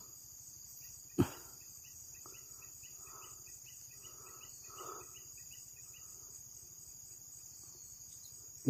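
Night chorus of crickets and other insects: a steady, even, high-pitched trill with no break. A single sharp click comes about a second in.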